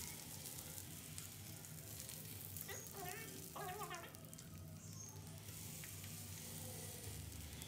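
Scored sausages sizzling in oil on a griddle pan: a steady, quiet sizzle as they are turned with chopsticks. Two short high calls sound briefly in the middle.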